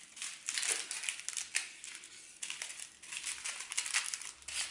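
Small clear plastic bags of diamond painting drills crinkling and rustling as they are handled and sorted, in an irregular run of short crackly rustles.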